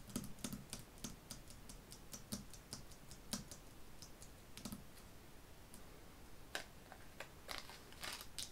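Tarot cards being shuffled and handled: a quick, irregular run of faint light clicks as the cards knock together, thinning out, then a few brushing swipes near the end.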